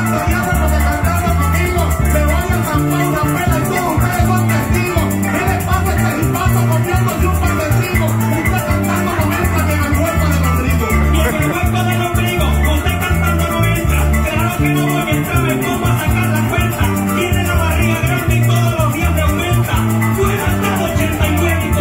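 Live Venezuelan llanero joropo music: a llanero harp plucking a fast melody over an electric bass line, with maracas shaking steadily.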